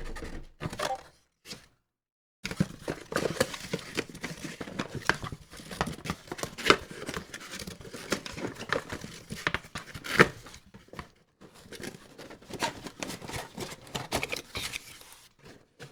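Packaging rustling, crinkling and tearing as accessories are unwrapped from a camera box: a few small clicks, a brief pause, then dense irregular crackling from about two and a half seconds in.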